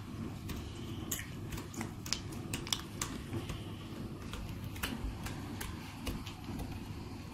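Homemade slime being stretched and pressed flat by hand on a wooden table, giving a run of irregular small clicks and pops over a low steady rumble.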